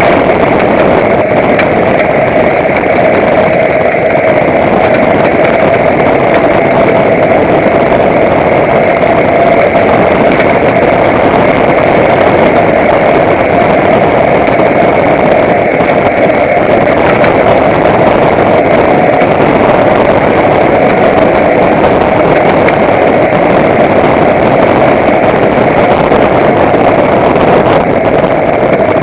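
Truck running with a steady, high whine held at one pitch over the engine noise. It is a new noise that the owner thinks doesn't sound good.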